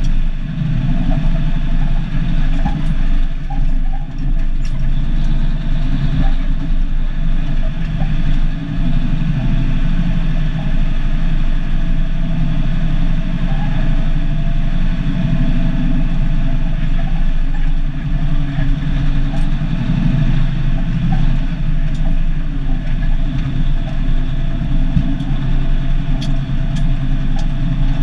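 Cummins NH-180 turbocharged inline-six diesel of an International F-210D dump truck running steadily under way, heard from inside the cab.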